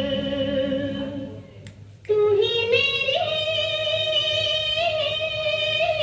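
A Hindi film song played back from cassette on a 1982 National stereo cassette deck: a singer holds long wordless notes over the accompaniment. One note fades out about a second and a half in, and a new one starts just after two seconds and is held, stepping up slightly in pitch.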